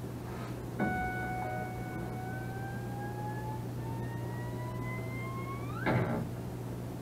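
A whistle-like sound effect from a meme video played over speakers: one long tone that climbs slowly in pitch for about five seconds, then sweeps up sharply into a short loud burst. A steady low hum runs underneath.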